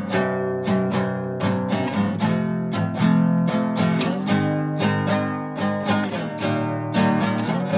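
Soundtrack music of a strummed acoustic guitar playing chords in a steady rhythm.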